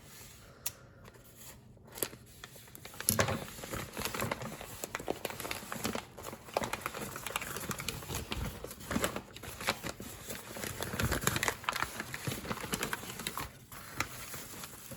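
Packing material and plastic wrapping crinkling and rustling as plants are unpacked from a shipping box. The rustling starts about two seconds in and carries on with many irregular sharp crackles and knocks.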